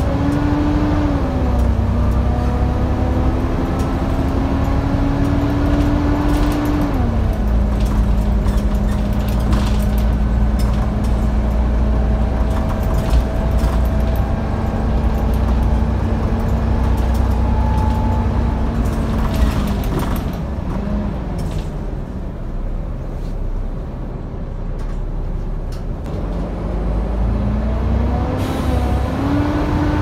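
Volvo B7TL double-decker bus heard from inside the saloon: the diesel engine's low rumble under a steady hoover-like whine. The whine steps down in pitch about a second in and again about seven seconds in, sinks away about twenty seconds in, then climbs back up near the end.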